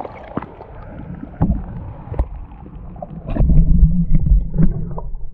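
Muffled underwater sound from an action camera held below the lake surface: water sloshing and gurgling around a hand as a bass is let go, with scattered knocks. A louder stretch of low rumbling and thumping comes about three and a half seconds in.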